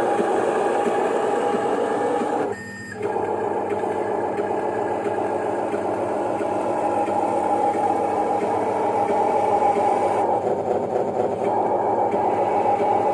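Electric motors and hydraulic pump of an RC construction model running with a steady whine. The whine cuts out briefly about two and a half seconds in, then starts again.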